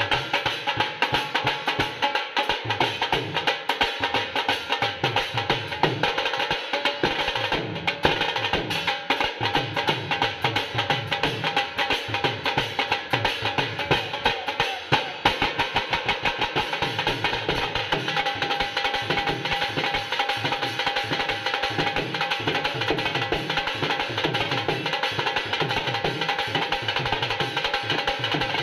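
A dhol drum group playing a fast, continuous bhangra rhythm with sticks: a large wooden barrel dhol and two smaller stick-played drums beating dense, interlocking strokes.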